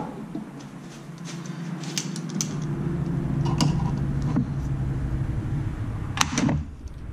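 Metal pliers clicking and clinking against spring hose clamps several times, at irregular intervals, as the clamps on a new radiator hose are pulled into place. A steady low mechanical hum runs underneath.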